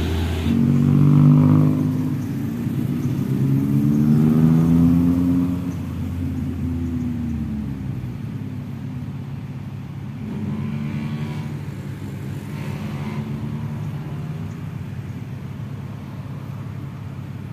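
Motor vehicle engines passing on a road, their hum slowly rising and falling in pitch. The loudest pass is about a second in, another comes around four to five seconds, and fainter ones follow later.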